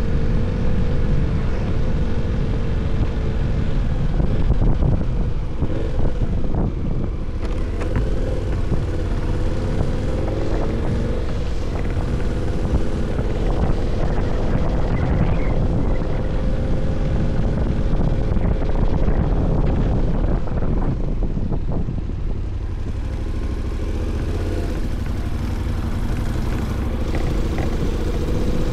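KTM 1290 motorcycle's V-twin engine running at low, fairly steady revs while ridden slowly, its pitch wavering a little, over a steady low rumble. The sound eases slightly about three-quarters of the way through.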